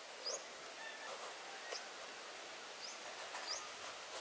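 Birds chirping outdoors: short, high chirps that rise in pitch, a second or so apart, over a steady background hiss.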